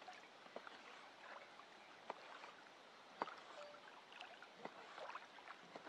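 Large knife slicing grilled steak on a wooden cutting board: about half a dozen faint, irregular taps as the blade goes through the meat and meets the board, over a low steady hiss.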